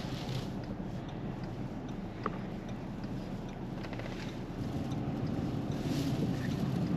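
Steady low rumble inside a Ford's cabin from its running engine, with wind hissing against the car in gusts three times.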